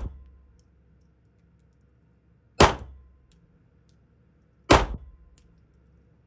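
Two pistol shots about two seconds apart, each dying away within about half a second in the enclosed range. The fading tail of a shot fired just before is heard at the very start.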